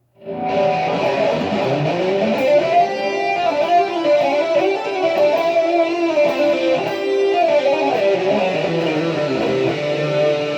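Jackson electric guitar fitted with DiMarzio Rainmaker and Dreamcatcher pickups, played through both pickups together (middle switch position) at full volume. It starts about half a second in with sustained notes in a melodic line that moves up and down in pitch.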